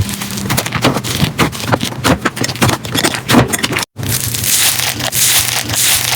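Slime being played with by hand: rapid, irregular crackling clicks for about four seconds, then, after a brief cut, a denser continuous squishing hiss, over a faint steady low hum.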